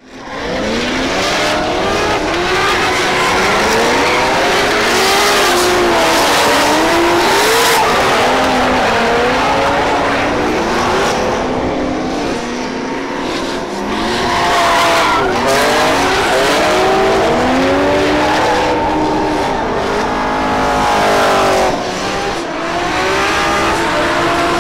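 Several drift cars sliding in tandem, a Formula Drift Pro 2 car ahead of Nissan 350Zs. Their engines rev up and down over and over, and the tyres squeal as the cars slide.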